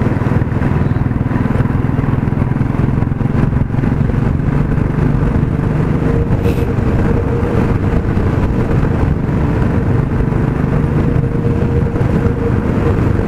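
Motorcycle engine running steadily while riding at cruising speed, under a steady rush of wind and road noise.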